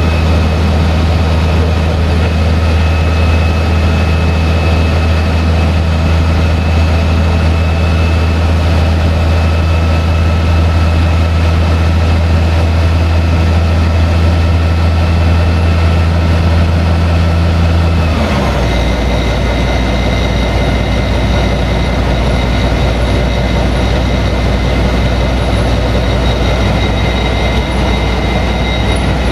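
Malaxa 1000 diesel railcar heard from the driver's cab while running, its engine giving a steady low drone over the rolling noise of the wheels on the track. About eighteen seconds in, the tones slide down and the low drone drops away, leaving the wheel and track noise with a higher steady whine.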